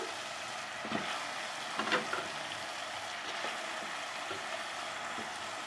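Chicken pieces sizzling as they fry in hot oil and onion-tomato masala, a steady hiss with a few light knocks.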